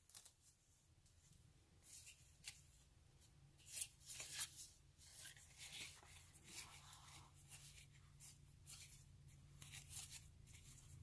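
Game cards being handled and flipped through: faint, scattered soft clicks and rustles, with two louder ones around four seconds in, over near silence.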